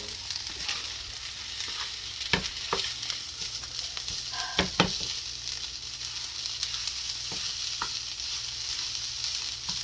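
Fried rice sizzling steadily in a hot pan on the stove, with a handful of sharp clicks of a utensil against the pan as it is stirred.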